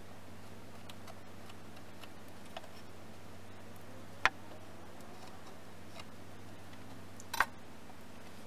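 Two sharp knocks about three seconds apart, the second one doubled, from hand woodworking tools at the bench. A few faint ticks fall between them, over a steady low hum.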